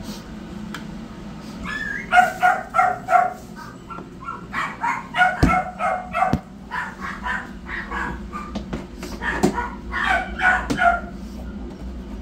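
Newborn kittens crying from inside a plastic pet carrier: short, high mews in quick runs of several a second, with a couple of sharp knocks from the carrier being handled about halfway through.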